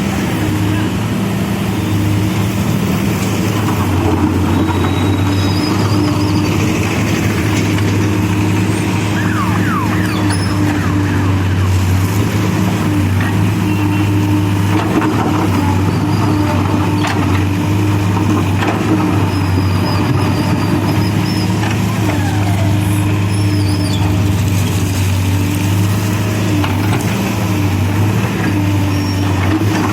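CASE backhoe loader's diesel engine running steadily with a low, even hum, with a few sharp knocks and faint high chirps over it.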